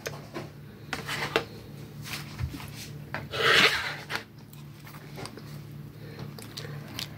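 Metal spoon scraping seeds and wet pulp out of a halved honeydew melon: short scrapes and clicks, with one longer, louder scrape about three and a half seconds in.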